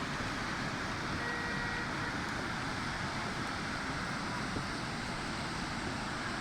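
Waterfall rushing: a steady, even noise without letup.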